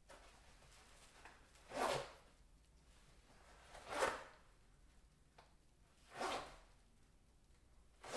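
Urination foley trailing off into short spurts: four separate splashy bursts, each about half a second long and about two seconds apart.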